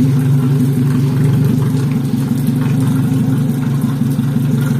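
Yamaha outboard motor idling steadily out of the water on a flush hose, its cowling off so the powerhead is exposed.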